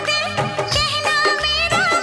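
Background music: an Indian film-style song with an ornamented, wavering melody line over a regular beat.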